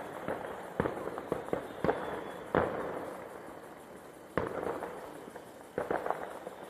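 Fireworks bursting overhead: a string of sharp bangs at irregular intervals, each trailing off in a rumbling echo. The loudest bang comes about two and a half seconds in, then a short lull before another run of bangs near the end.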